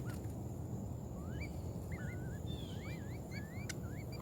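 Birds chirping: a run of short whistled notes that sweep up and down, coming thicker after about a second, over a steady thin high-pitched tone and a low background rumble.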